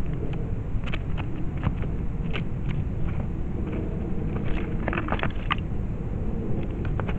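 Wind rumbling on the microphone outdoors, with scattered short high ticks over it.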